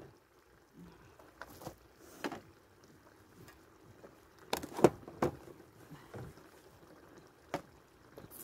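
Scattered light knocks and clinks of a plate, jars and other camp-kitchen items being handled and set down on a table, the loudest a couple of knocks about four and a half to five seconds in.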